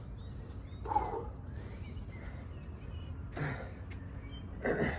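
A man breathing hard while catching his breath after high-intensity exercise: three heavy exhales, about a second in, past the middle and near the end. Faint bird chirps sound behind them.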